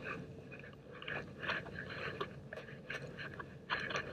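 Faint footsteps crunching on grass and dry leaves, a few irregular crackly steps.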